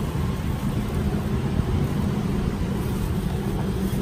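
Steady low rumble of a running engine with no distinct events, typical of motor traffic beside a street stall.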